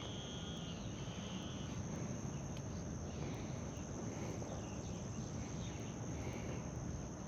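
Insect chorus, a steady high-pitched drone, over a quiet outdoor background.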